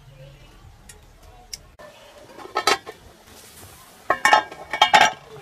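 Aluminium cooking pot and its lid clanking: a pair of metal knocks about halfway through, then a quicker run of ringing clinks near the end, the loudest of them.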